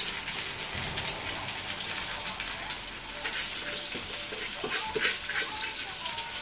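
Rice being tipped and scraped by hand from a metal bowl into an aluminium pot, with a few sharp clinks in the second half, the loudest about halfway through, over a steady hiss.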